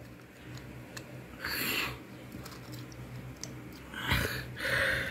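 Handling noise from small plastic LEGO figures being moved by hand: three short soft rustles and a few faint clicks over a low steady hum.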